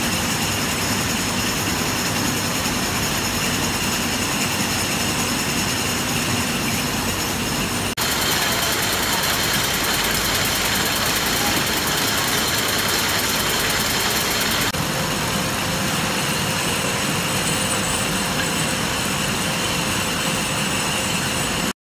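Glass-bottle juice filling line machinery running: a steady, dense mechanical noise from the bottle conveyor and labelling machine. It changes abruptly twice, once about a third of the way in and again past the middle. The middle stretch carries a fast, high ticking.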